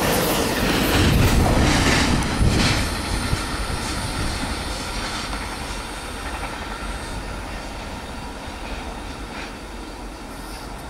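Amtrak Auto Train's autorack cars rolling away on the rails. There is loud wheel clatter with a few sharp clacks in the first few seconds, then the rumble fades steadily as the train recedes.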